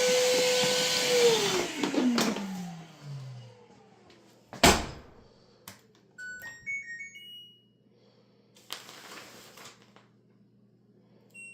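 A vacuum cleaner motor whining steadily, then spinning down with a falling pitch after it is switched off. A sharp thump follows about four and a half seconds in, then a short run of rising electronic appliance beeps, and a single beep near the end.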